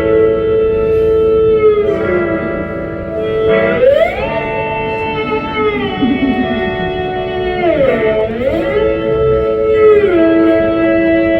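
Electric guitar played through an amplifier, holding chords that slide slowly up and down in pitch, with a dip and rise about eight seconds in.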